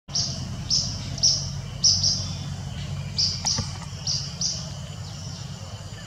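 Indian nuthatch calling: a run of short, sharp, high notes, about two a second, over a steady low hum, with a single faint click about halfway through.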